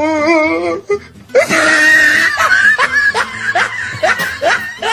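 People laughing loudly: a drawn-out wavering voiced cry at the start, then laughter in quick repeated breaths, about three a second.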